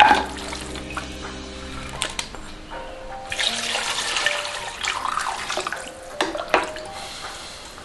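Chopped chicken pieces tipped into a ceramic casserole pot with a sharp clatter, then water poured into the pot in a steady rush for about four seconds, over soft background music.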